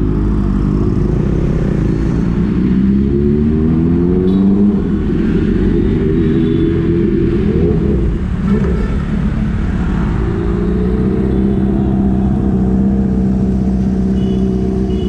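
Motorcycle engine under way, rising in pitch as it accelerates over the first few seconds, easing off briefly about eight seconds in, then holding a steady note at cruising speed.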